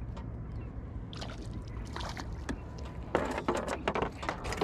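Knocks and rattles of a freshly hooked mackerel and sabiki rig being brought aboard a small boat, over a steady low rumble. The clatter starts about a second in and gets busier near the end.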